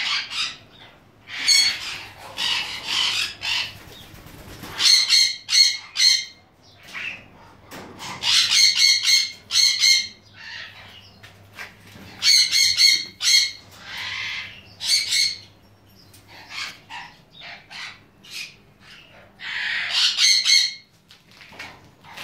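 Crimson-winged parrots calling: harsh squawks and bursts of rapid, evenly repeated short notes, several runs of them one after another.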